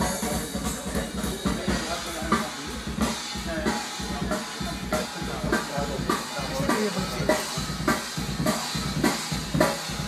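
Recorded music with a prominent drum kit, kick and snare keeping a steady beat, played back loud over hi-fi loudspeakers driven by Canary Audio all-tube amplifiers and heard in the listening room.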